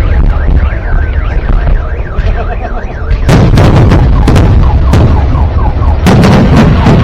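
Fireworks going off: a warbling, siren-like whistle for the first few seconds, then heavy bursts about three seconds in and again near the end, each followed by a rapid run of crackling pops over a constant low rumble.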